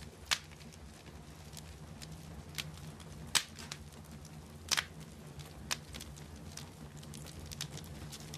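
Wood fire crackling: scattered sharp pops, the loudest about a third of a second in, at about three and a half seconds and just before five seconds, over a low steady rumble.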